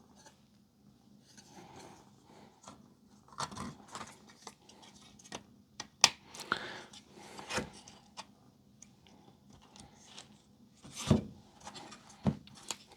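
Hands working on a stack of circuit boards during reassembly: scattered small clicks, taps and scrapes of parts being handled and fitted. The sharpest clicks come about halfway through, once more a second and a half later, and again near the end.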